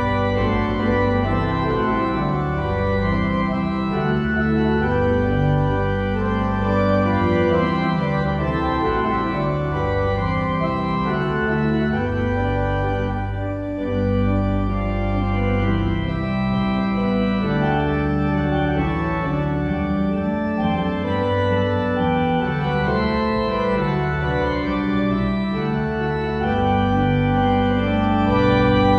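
Organ music: held chords over a bass line that moves from note to note.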